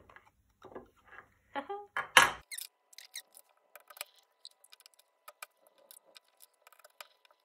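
Metal cork borer and rod being worked through a raw potato: scattered light clicks and scrapes, with one sharper knock about two seconds in, then many faint ticks.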